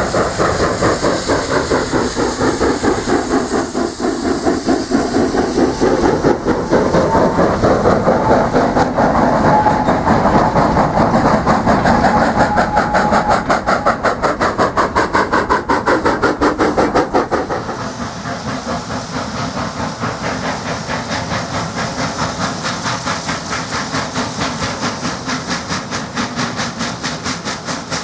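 Hunslet Austerity 0-6-0 saddle-tank steam locomotive hauling a goods train: fast, steady exhaust beats, steam hissing and wagon wheels clicking over rail joints as the train passes close. About two-thirds through the sound drops suddenly to a quieter, still steady beat of a locomotive at work.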